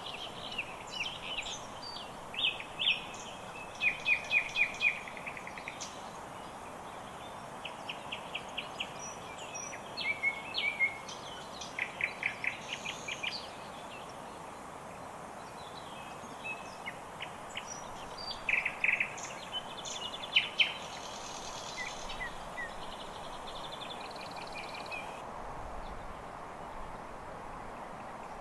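Songbirds singing: bursts of quick, high chirps and trills repeated every second or two, over a steady background hiss. The birdsong stops a few seconds before the end.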